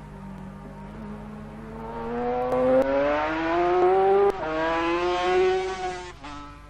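Racing sidecar outfit's engine pulling hard, its note rising steadily in pitch and growing louder. About four seconds in it drops suddenly at a gear change, pulls again, then fades as the outfit goes away.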